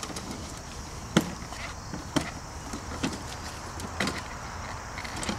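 A few sharp knocks, about a second apart, over a low steady rumble.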